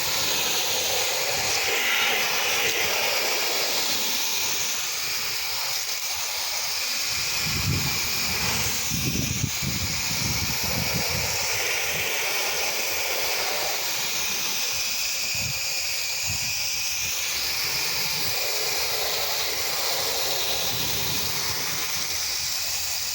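Pressure washer spray hissing steadily while house-wash chemical is applied.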